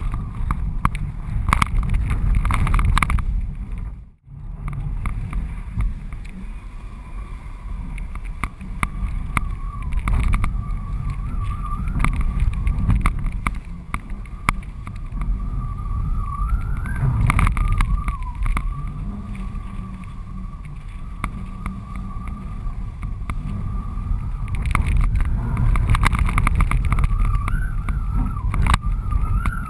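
Wind rushing and buffeting over a GoPro HD camera mounted on the strut of a flying 14 m Cabrinha Switchblade kite: a deep rumble with a wavering whistle through it and many sharp ticks. The wind noise drops out abruptly for a moment about four seconds in.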